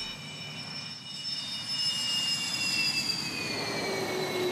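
Su-30 fighter jet's turbofan engines running at high power on its takeoff roll: a rushing roar with a high whine of several tones that falls in pitch over the last second and a half as the jet goes past.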